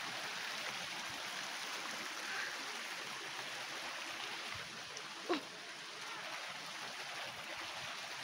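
Steady rushing of a flowing stream's water, with one brief falling call about five seconds in.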